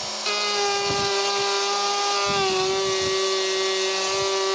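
Electric router running at a steady high whine, cutting away waste wood in the door frame for the lock's plate; its pitch sags briefly about two seconds in as the cutter takes load.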